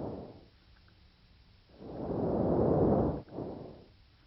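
Normal vesicular breath sounds heard over the lungs, soft and low-pitched. A rushing inhalation lasts about a second and a half and is followed, after a brief break, by a shorter, fainter exhalation, with quiet between the breaths.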